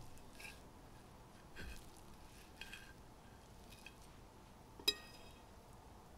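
A knife cutting and scraping through a pie in its dish, with short clicks of metal on crockery about once a second and one sharp, ringing clink about five seconds in.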